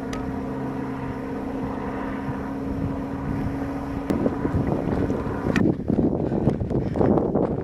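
A steady engine-like hum, holding one pitch, over wind noise on the microphone. A little over halfway through the hum cuts off abruptly, leaving gusty wind buffeting the microphone.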